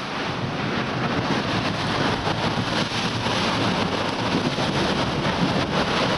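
Rushing, churning water of a sailing catamaran's wake behind the hulls at about 13 knots, with strong wind buffeting the microphone. The noise is steady and dense and grows louder about a second in.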